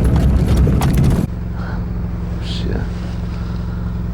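A vehicle on the move: loud rough rattling and knocking for about a second, then after an abrupt cut a steady low engine hum, with two faint high chirps over it.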